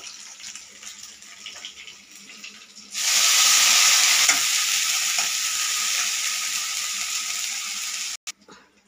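A tempering of cumin and dried red chillies frying quietly in hot oil in a kadai. About three seconds in, chopped fresh coriander leaves go into the oil and set off a sudden loud sizzle that slowly dies down, then cuts off abruptly near the end.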